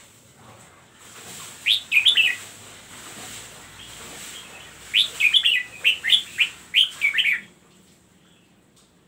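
Red-whiskered bulbul singing: a short burst of three quick whistled notes about two seconds in, then a longer run of rapid, falling notes from about five seconds to seven and a half.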